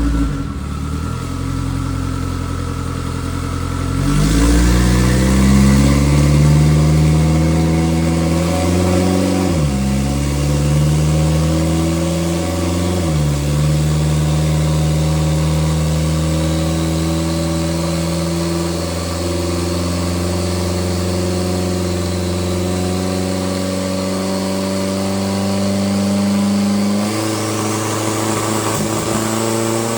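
A race car's engine running on a chassis dyno. The revs climb about four seconds in and dip briefly twice, like gear changes. The engine is then held at a steady speed for a long stretch before the revs drop near the end, with a faint high whine rising slowly over it.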